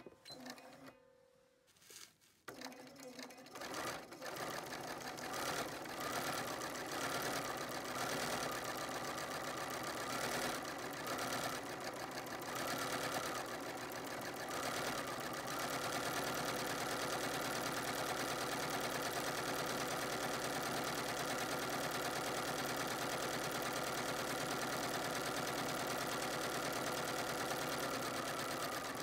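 Bernina 590 sewing machine stitching free-motion embroidery with metallic gold thread, run at a moderate, not-too-fast speed. It goes quiet for about two seconds near the start, then starts up again and runs on steadily.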